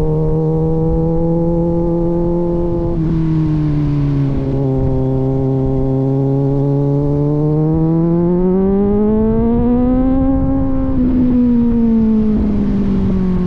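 Kawasaki Z900 inline-four running through an aftermarket AR exhaust while riding. It holds steady revs, with a short break about three seconds in, then revs climb for a couple of seconds. Near the end it breaks off briefly and the revs ease back down.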